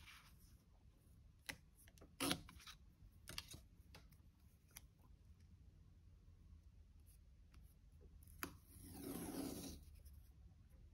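Washi tape being handled and laid on a paper planner page: a few light taps and clicks in the first few seconds, then tape peeled off the roll with a scratchy sound lasting about a second and a half near the end.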